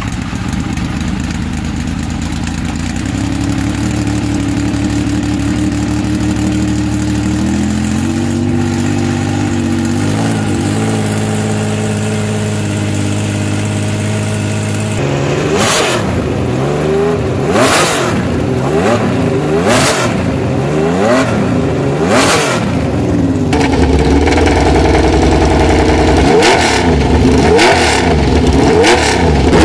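Laverda V6 motorcycle engine, fed by six Dell'Orto carburettors, idling steadily with a couple of light blips. About halfway in it is revved hard again and again, the pitch rising and falling, with several sharp cracks between revs; near the end it revs on with a brighter tone.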